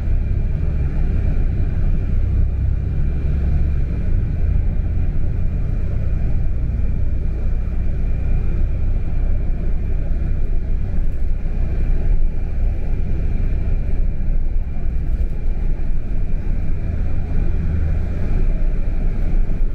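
Road vehicle driving steadily, heard from inside the cabin: a continuous low engine and road rumble with a faint steady high whine above it.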